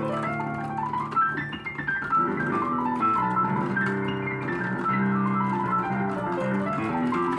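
Electronic keyboard being played: held low chords under quick runs of notes that climb and fall in the upper range.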